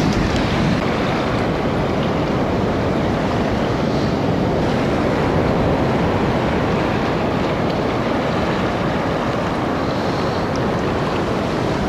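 Sea surf breaking and washing over a rocky, stony shore: a steady rush of water, with wind noise on the microphone.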